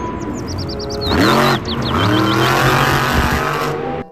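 Monster truck's supercharged V8 revving hard, its pitch rising and falling in sweeps over arena crowd noise, with a run of short high-pitched chirps in the first couple of seconds.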